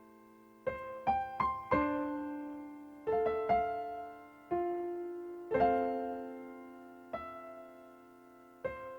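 Slow instrumental piano music: single notes and chords struck at a gentle pace, each left to ring and fade.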